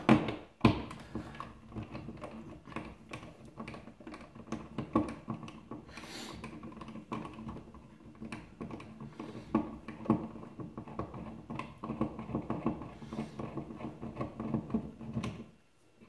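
The mounting screw of a toggle light switch being turned out of a plastic junction box with a hand screwdriver: a steady run of small scraping clicks as the screw turns. It stops shortly before the end.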